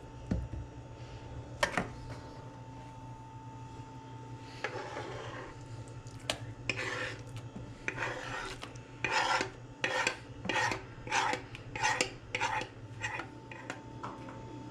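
A kitchen utensil scraping and rubbing in a bowl with rhythmic strokes, about two a second, starting about halfway through and growing louder, after a few scattered knocks.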